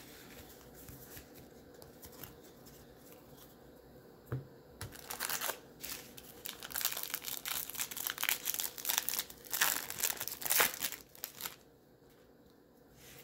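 A trading card pack's wrapper being torn open and crinkled: a dense, irregular crackle of wrapper noise that starts about five seconds in and stops shortly before the end.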